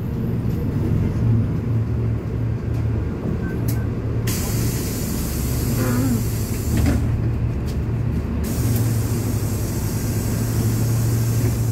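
Volgabus 4298.G4 city bus interior: a steady low drivetrain hum, with compressed air from the bus's pneumatic system hissing twice, for about three seconds from about four seconds in and again for about three seconds near the end, as the bus halts and its door opens.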